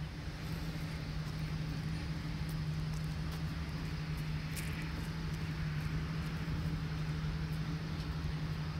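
Ford F-550's gas V10 engine idling with a steady, even hum and low rumble.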